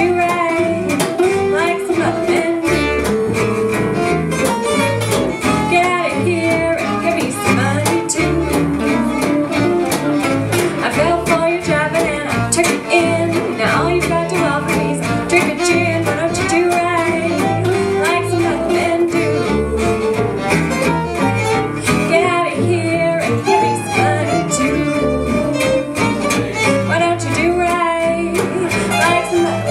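Small swing band playing live: violin lead over strummed guitar rhythm and bass.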